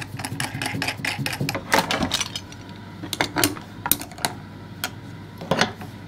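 Sharp metallic clicks and clinks of tools and small metal parts being handled. They come in a quick run for the first two seconds or so, then as scattered single knocks.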